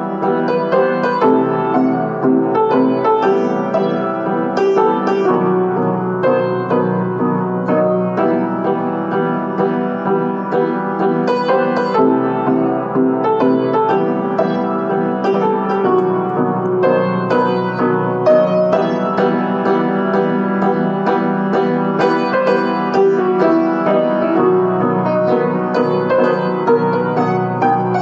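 Piano playing a solo piece, a continuous flow of single notes over sustained chords at an even loudness.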